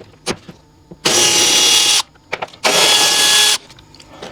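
Cordless electric ratchet spinning out seat bolts in two bursts of about a second each, with a few small clicks between.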